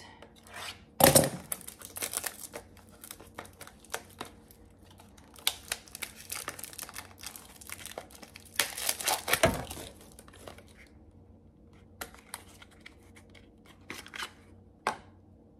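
Packaging being torn open and crinkled by hand in irregular bursts, with a sharp loud rip about a second in and a dense run of tearing and crinkling around the middle, thinning to a few light clicks near the end.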